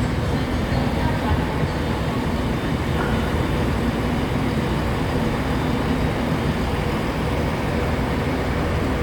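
Avanti West Coast Class 390 Pendolino electric train at the platform, giving a steady hum over low, even noise with no breaks.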